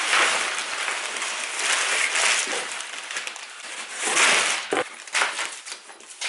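Crumpled brown kraft packing paper rustling and crackling as a cardboard box is turned over and shaken out, its contents tumbling onto a workbench, in several louder bursts.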